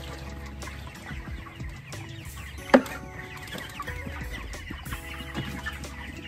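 A flock of broiler chickens clucking steadily, with one sharp, loud knock just under three seconds in.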